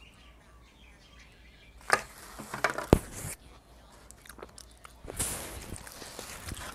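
Rustling and crinkling of thin plastic as a summer roll and its plastic wrapping are handled over a takeout box. It comes in two bursts, with a sharp click about three seconds in.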